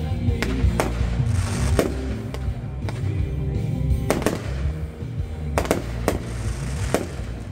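Aerial fireworks shells bursting: about ten sharp bangs at uneven intervals, a few followed by crackling, over music playing underneath.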